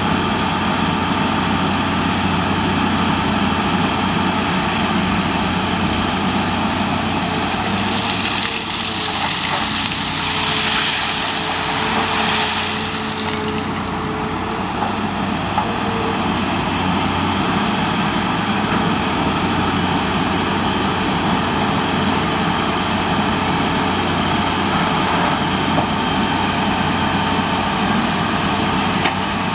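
Caterpillar 330C long-front excavator's six-cylinder diesel engine running steadily under hydraulic load as it digs and swings gravel. About eight seconds in a rushing hiss rises over the engine for several seconds, then fades.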